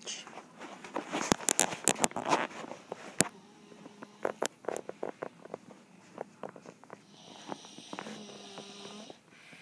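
Footsteps and handling knocks as someone walks through a room, then a sleeping person snoring: one long snore about eight seconds in.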